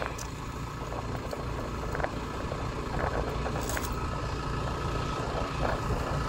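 Kubota DC70 rice combine harvester's diesel engine running steadily, with a few faint clicks over the hum.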